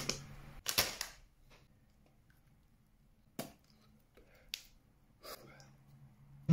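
A thin salted breadstick snapping with a short sharp crack, followed by a couple of smaller clicks and a soft breathy sound, with quiet between.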